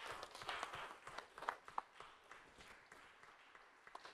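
A small congregation applauding by hand: a burst of clapping at first, thinning after about a second to scattered single claps.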